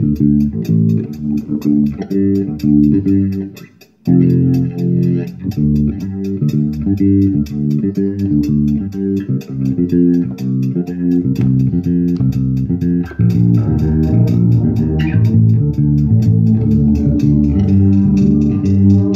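Electric bass guitar playing a bass line of short, changing notes through effects pedals. It breaks off for a moment about four seconds in and comes back, and the tone gets fuller in the low end about thirteen seconds in.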